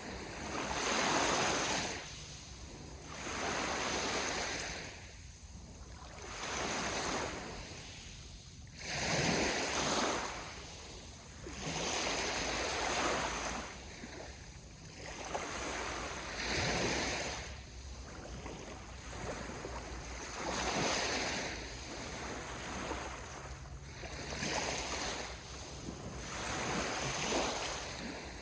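Small sea waves washing in on the shore, a surge of surf hiss swelling and falling back about every two seconds.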